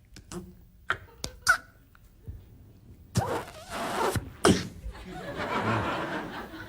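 A man's mouth-made sound effects into a microphone: a few sharp pops and clicks, then a louder hissing vocal burst. Studio audience laughter follows.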